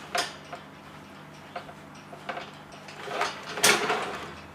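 Bird cage tray and loose litter being handled: scattered light clicks and knocks, a sharp click just after the start, and a louder rustling scrape about three and a half seconds in.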